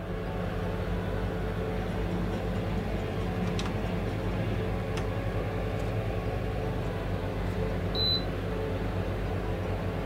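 SilverCrest SHLF 2000 D1 fan heater's blower running steadily with a low hum, its oscillation (swing) function on. One short electronic beep about eight seconds in.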